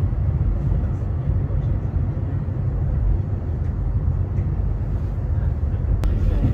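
Steady low rumble of a Fadak passenger train under way, heard from inside the carriage, with one sharp click near the end.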